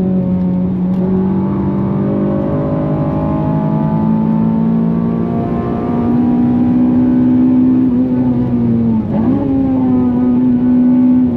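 Honda Civic FN2 Type R's K20 four-cylinder engine pulling hard at high revs under load. Its pitch holds fairly steady, steps up about six seconds in, dips briefly and climbs back about nine seconds in, then starts to drop at the very end.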